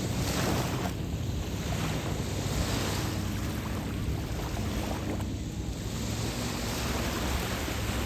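Waves washing onto a beach, the surf swelling and fading every few seconds, with a low wind rumble on the microphone.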